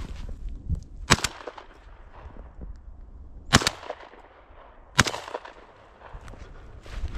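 Footsteps crunching and brushing through snow-covered weeds and brush, with three sharp cracks about a second, three and a half seconds and five seconds in.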